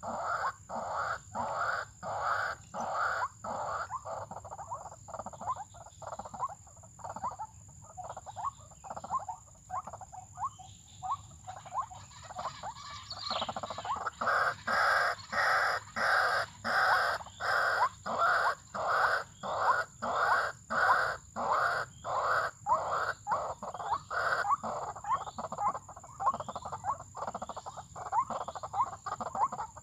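White-breasted waterhen (ruak-ruak) calls in a fast, even series of short notes, about two a second. The notes fade in the middle and come back louder about halfway through.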